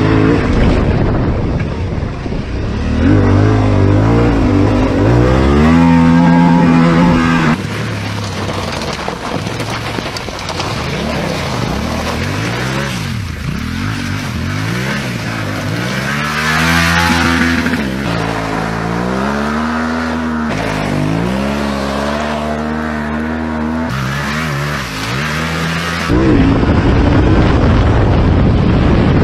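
Yamaha Ténéré 700's parallel-twin engine revved hard and let off again and again, its pitch climbing and dropping many times across several cut-together riding clips. Wind rushes over the on-bike camera's microphone at the start and again for the last few seconds.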